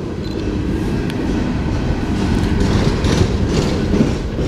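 Empty coal hopper cars of a freight train rolling past directly underneath, a steady rumble of wheels on the rails.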